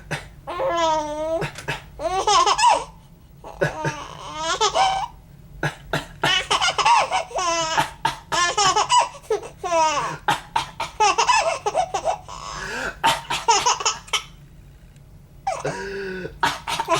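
A three-month-old baby laughing in repeated high-pitched bouts with short pauses between, and a longer pause near the end. She is laughing at her father's coughing.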